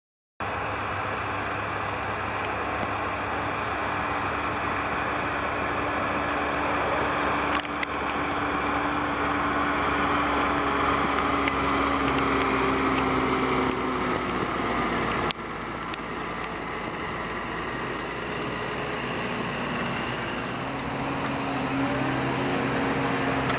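Case tractor engine running steadily under load while ploughing, its pitch sagging slightly and recovering. The sound jumps abruptly twice.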